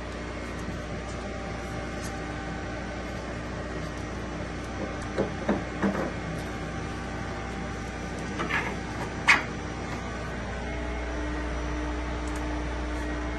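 Steady hum of workshop machinery with a few faint steady tones, broken by several light knocks and clicks as small cut parts are handled over the router's table; a low tone grows louder near the end.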